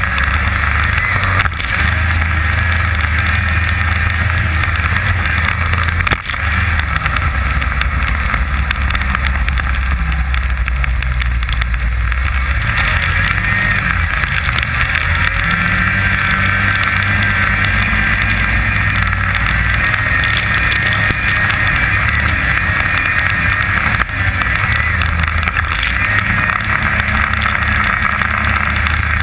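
Snowmobile engine running steadily while the sled travels over snow, heard from a camera mounted on the machine, its note changing a few times.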